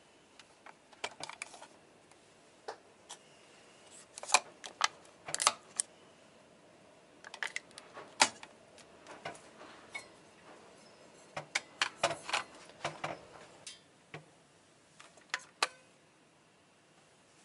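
Scattered clicks and taps of plastic parts being handled on a single-serve coffee maker as its lid is opened and closed to load it for brewing.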